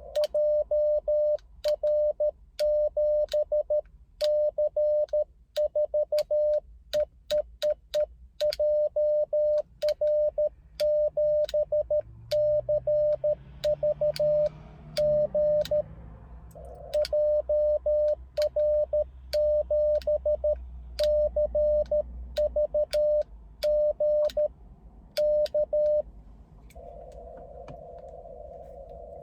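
Morse code (CW) keyed on an amateur radio transceiver: the sidetone, a steady tone of about 600 Hz switched on and off in dits and dahs, with sharp clicks along with the keying. About 27 s in the keying stops and a band of receiver hiss at the same pitch returns.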